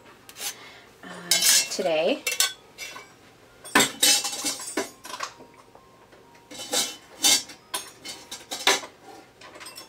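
Metal mesh kitchen strainer clattering and clinking against the stainless steel counter and nearby containers as it is set aside and keeps falling over: a string of separate knocks and clinks, some with a short metallic ring.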